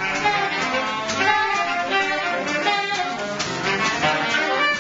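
Saxophone ensemble playing live, several saxophones sounding different notes together in a moving, dense texture.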